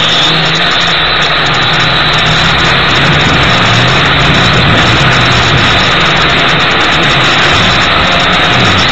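Gptoys Aviax F2C quadcopter's motors and propellers whirring loudly, heard from its onboard camera, the motor pitch wavering up and down as the throttle changes while it takes off from grass.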